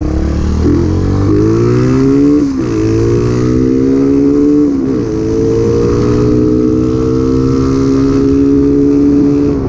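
Rusi Macho 150's single-cylinder four-stroke engine, stock but fitted with a 30mm carburettor, accelerating through the gears. The pitch climbs, drops at upshifts about two and a half and five seconds in, then climbs slowly again.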